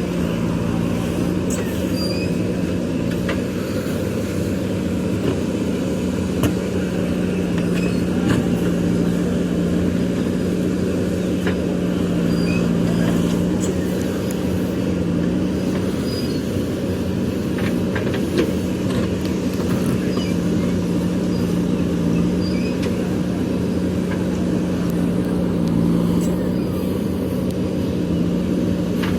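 JCB backhoe loader's diesel engine running steadily under working load, with a few short metallic clicks and knocks scattered through it.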